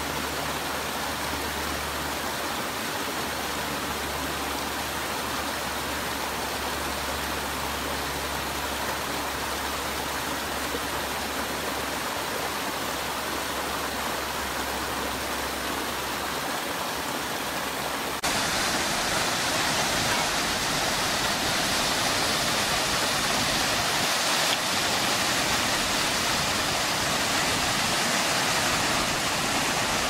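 Steady rush of water tumbling over the rocks of a small cascading stream. About 18 seconds in it cuts to the louder, brighter rush of a large waterfall in full spate.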